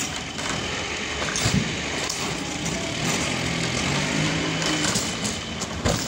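Sawmill running with its blade cutting through a trembesi (rain tree) log: a steady mechanical noise with a thin high whine, and a couple of sharp knocks, one about a second and a half in and one near the end.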